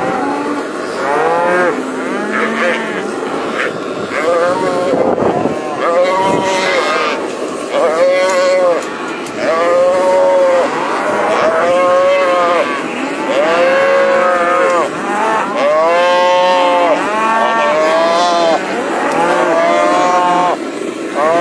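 Calves bawling, one loud call after another, each about a second long and rising then falling in pitch. The calves are being roped and held down on the ground.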